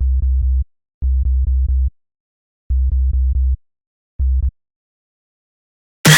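Synthesized deep bass notes played in short stop-start runs, each run chopped into quick repeated pulses with silent gaps between runs, then a loud noisy hit just before the end.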